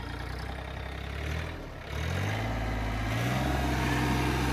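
Mahindra Oja 2127 compact tractor's three-cylinder diesel engine running in the low range. The engine note dips briefly, then climbs about two seconds in and settles at a higher, steady speed, growing a little louder.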